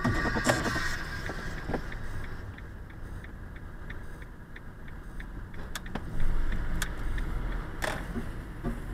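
Car driving slowly, heard from inside the cabin: low engine and tyre rumble with faint light ticks, growing louder about six seconds in.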